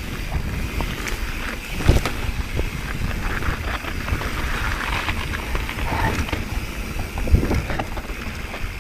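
Mountain bike ridden down a dirt and gravel trail: tyre and wind noise with a constant clatter of small knocks from the bike. There are two heavy thumps as it hits bumps, about two seconds in and about seven seconds in.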